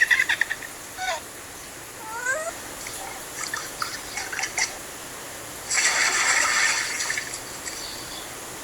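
Short animal calls with quick upward glides in pitch, then one harsh, raspy cry lasting about a second and a half, around six seconds in.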